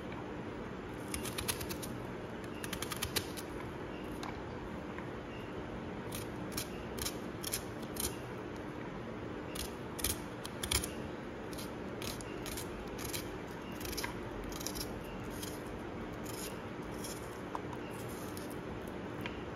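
Kitchen knife cutting a hand-held onion into fine dice: runs of crisp clicks and snips as the blade goes through the layers, in bursts with short pauses between.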